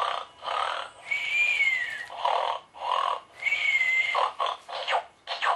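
Gund Droopy the Snoring Dog toy's electronic snoring sound: rasping snore breaths, twice broken by a thin whistling note on the out-breath.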